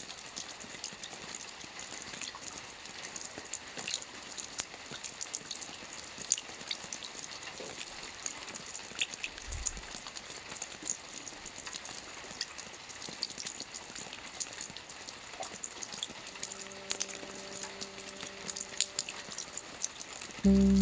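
Steady rain: an even hiss with many small drop ticks throughout, and a low thud about halfway. Near the end, soft sustained musical tones come in, and just before the end a much louder chord starts.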